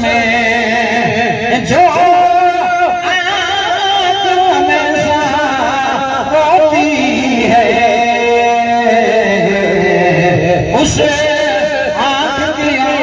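A man's voice singing an Islamic devotional song through a microphone, in long wavering held notes with ornamented turns; about two-thirds of the way through, one long note slides down in pitch.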